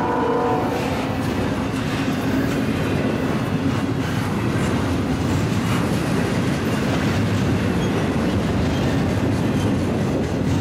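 Double-stack intermodal freight train's well cars rolling past at speed, a steady rumble with the wheels clicking over the rail joints. A train horn sounds at the start and cuts off under a second in.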